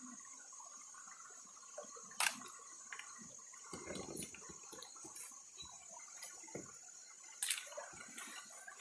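Shallow creek water splashing around bare feet and a wooden screening box of gravel, with a louder slosh about four seconds in. Two sharp clicks come through, one about two seconds in and one near the end.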